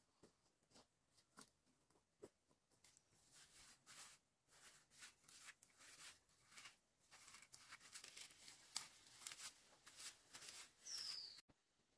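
Faint crisp rustling and tearing of green plant stems and leaves being stripped and peeled by gloved hands, in many short rasps that come thicker after the first few seconds. A brief high falling whistle sounds near the end.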